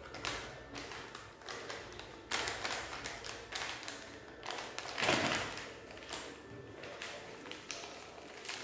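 Plastic candy packets crinkling and rustling as they are handled, in a run of short irregular bursts with the loudest about five seconds in.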